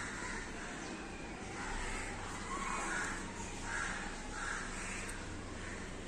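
An animal calling again and again in short calls, about eight of them, evenly spaced.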